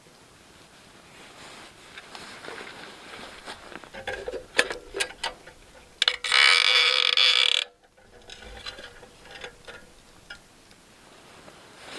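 Metal hurricane kerosene lantern being handled: light clicks and rattles of its wire frame and guard. About six seconds in comes a loud rushing hiss that lasts about a second and a half and cuts off suddenly.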